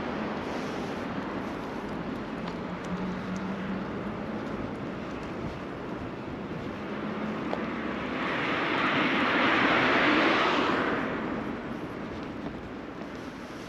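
Street traffic noise beside a wide road, with one vehicle swelling past, rising from about eight seconds in, loudest around ten seconds and fading by eleven.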